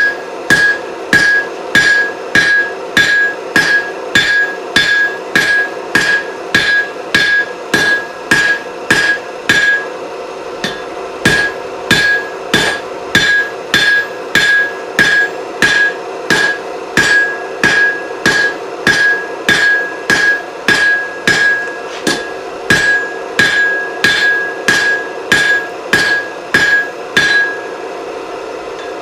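Rounding hammer striking hot iron on an anvil at about two blows a second, each blow with a ringing anvil tone, as the finger grip of a chisel is forged. The hammering breaks off briefly about ten seconds in and again near the end, over a steady low hum.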